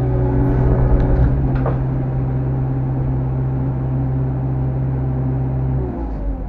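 Heavy diesel engine running steadily at raised revs, then dropping in pitch about six seconds in.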